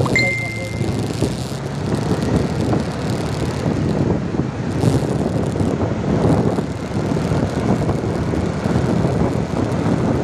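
Steady engine and road noise of a moving vehicle in traffic, heard from the following vehicle. A single high beep lasting about a second comes right at the start.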